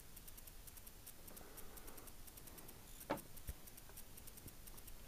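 Faint handling noise from work on the motorcycle: one sharp click about three seconds in and a soft knock just after, over a faint, steady high ticking.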